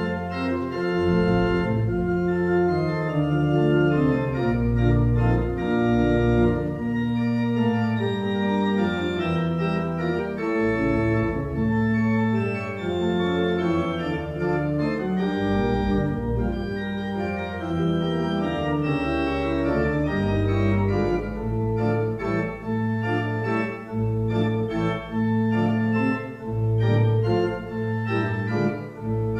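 Church pipe organ being played: sustained chords and moving notes over deep held bass notes.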